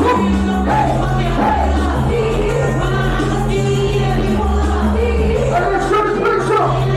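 Music with singing: a song with a steady bass line, changing notes every second or so, under a sung vocal melody.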